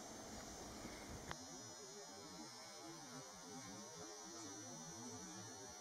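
Near silence: faint hiss with a low electrical hum and a thin high steady whine. There is a soft click about a second in, where the background changes.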